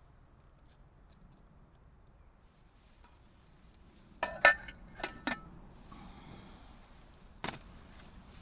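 A few sharp clinks of cookware, each with a short ring, about four to five and a half seconds in, the loudest near four and a half seconds, then one more clink near the end.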